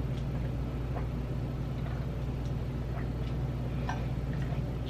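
Faint, scattered crunches of potato chips being chewed, about one a second, over a steady low room hum.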